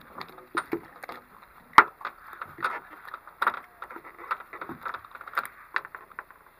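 Irregular knocks, taps and rustles of handling on a small boat's deck, with one sharp knock about two seconds in the loudest.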